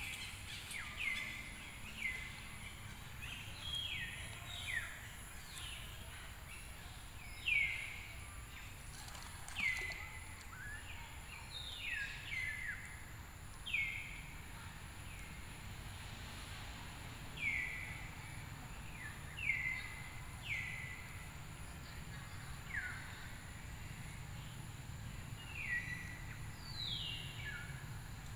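An animal's repeated short high calls, each sliding down in pitch, one every second or two, over a steady low rumble.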